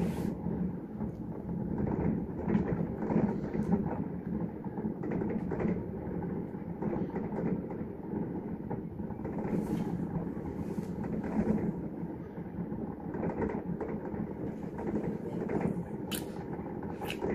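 Fireworks shells bursting in a continuous barrage, heard as a muffled, uneven rumble of overlapping booms, with a few sharper cracks about ten seconds in and twice near the end.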